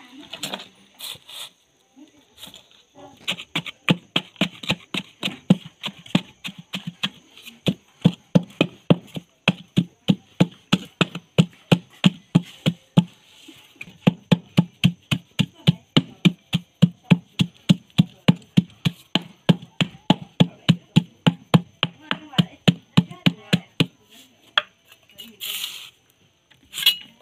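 Steady rapid tapping, about three taps a second, with a mallet on a sheet-metal brick mould packed with wet concrete, compacting the mix. The tapping stops briefly about halfway through and ends a few seconds before the close.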